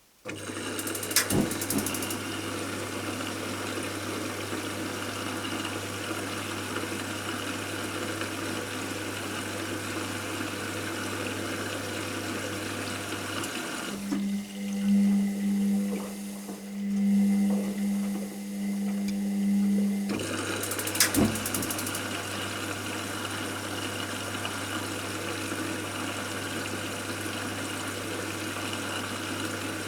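Washing machine running: a steady motor hum with water churning, starting abruptly. A sharp click comes about a second in and again near 21 s, and from about 14 to 20 s the steady hum is replaced by a louder, wavering hum before the first sound resumes.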